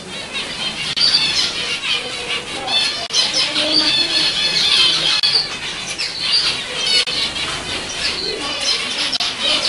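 A flock of zebra finches calling together: a dense, continuous chorus of many short, repeated calls overlapping one another.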